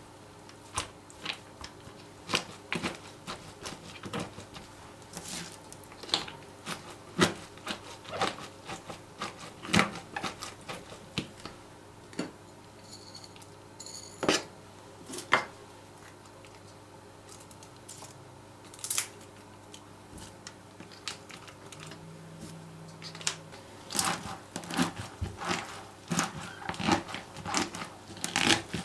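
Hands packing and pressing shredded raw cabbage into a plastic bucket: irregular crisp crunches and rustles with small clicks, coming thicker and louder near the end.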